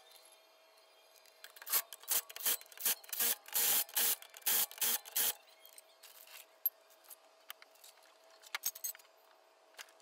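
A run of about ten short rasping strokes, roughly three a second, lasting about three and a half seconds, over a faint steady hum; a few faint clicks follow near the end.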